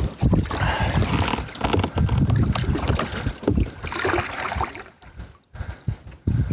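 Wind buffeting the microphone in irregular gusts, with a noisy rush over it, easing briefly about five seconds in.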